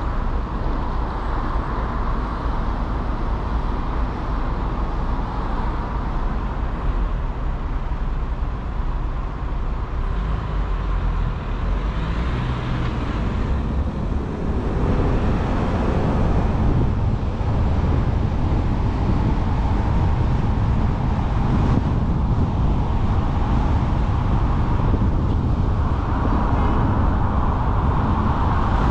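Car on the move: steady engine and tyre-on-road noise with a deep rumble, getting somewhat louder and heavier about halfway through.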